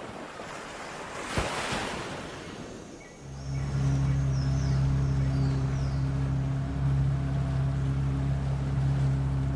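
Intro sound effects: a rushing noise swell with a sharp click about a second and a half in, then from about three seconds a low, steady synthesizer drone with faint falling high sweeps.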